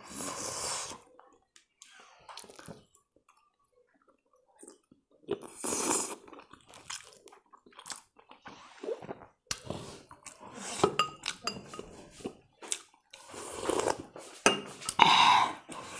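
Close-miked eating sounds of chicken momo (steamed dumplings): chewing and wet mouth sounds, finger-licking, and light clinks. The sounds come in scattered short bursts, with a quiet stretch a few seconds in.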